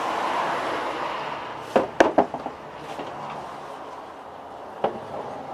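Wooden stand knocking as it is handled and set down: three quick sharp knocks about two seconds in and one more near the end, over a steady background noise that fades.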